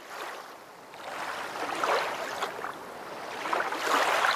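Lake water rushing and splashing, swelling twice.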